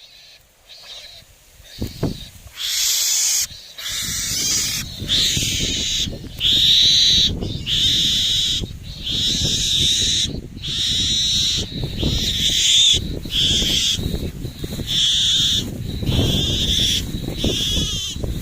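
A series of high calls, each about a second long, repeating every second or so from about two and a half seconds in, with a low rustling noise underneath.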